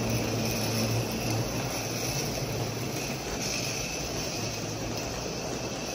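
A live-steam model Shay locomotive and its heavy freight cars rolling past on the track: a steady rumble of wheels on rail with a low hum.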